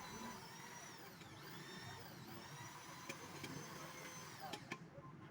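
A small motor-driven machine running steadily with a high whine that dips in pitch a few times, then cutting off abruptly near the end.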